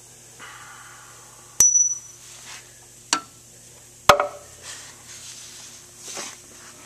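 Sharp metallic clinks of tools and parts against a 1939 Farmall F-20 engine's connecting rod and crankcase while the rod bearing cap is fitted. Three distinct strikes come about one and a half, three and four seconds in, two of them ringing briefly, followed by a few softer knocks.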